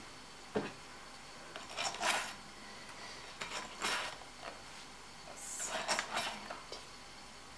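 Fingers rasping over the fine wire teeth of a Walther drum carder's big drum, picking Angora fibre off the carding cloth: four short scratchy brushes a second or two apart, with a light knock about half a second in.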